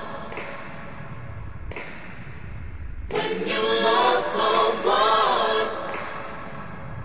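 Background music: a song in which choir-like voices sing one phrase about three seconds in, between quieter instrumental stretches with a low bass.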